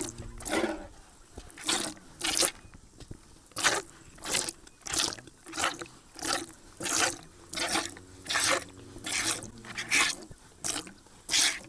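Milk squirting into a pail in short, even spurts, about two a second, as a cow is hand-milked with alternating squeezes of the teats.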